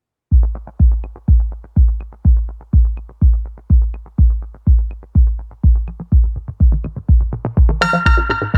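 Electronic background music: a deep four-on-the-floor kick drum about twice a second with light off-beat ticks, joined near the end by a bright synthesizer melody.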